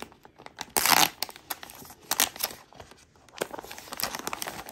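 Paper wrapping being torn off a small gift box: one loud rip about a second in, then scattered crinkling and crackling of the paper.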